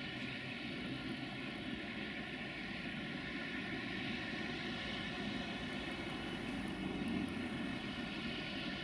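Diesel train engine running steadily, a continuous drone with no change in speed or load.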